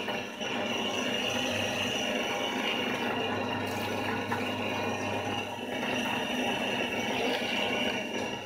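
Meat-grinder-type feed pellet machine running steadily, a continuous mechanical hum with a faint high whine.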